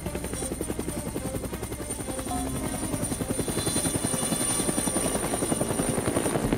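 Helicopter rotor sound effect: a fast, steady blade chop with a thin high whine over it, growing a little louder toward the end.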